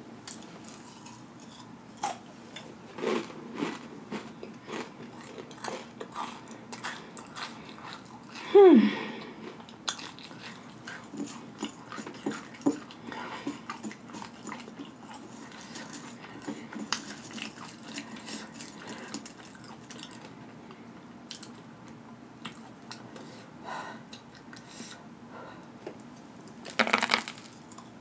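Close-up chewing and crunching of spicy tortilla chip pieces, with wet mouth and lip smacking in many small crackles. About a third of the way in a short voice sound falls steeply in pitch, and near the end there is one brief louder burst.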